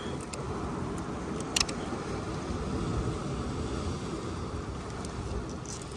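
Steady low rumble of sea surf and wind on the microphone, with a few light clicks, the sharpest about a second and a half in.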